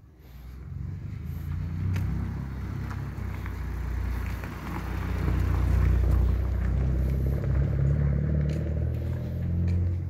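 Low rumble of a passing vehicle, building over the first second or so and loudest around the middle.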